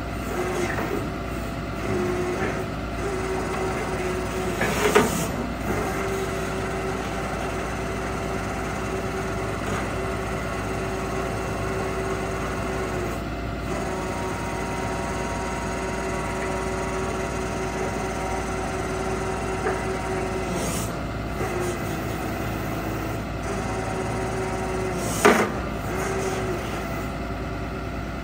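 Cummins 6.7L turbo diesel of a Ford F750 digger derrick truck running to drive the boom hydraulics, with a steady whine that shifts in pitch a few times as the boom is worked. Two short sharp sounds cut through, about five seconds in and again near the end.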